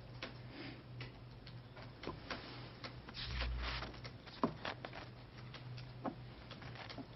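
Faint, irregular light clicks and taps, a few a second, over a steady low electrical hum. A dull thump with a brief rustle comes about three and a half seconds in.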